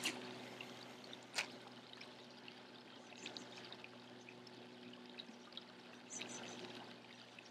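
Faint, steady trickle of running water with a low hum under it, and two sharp clicks in the first second and a half.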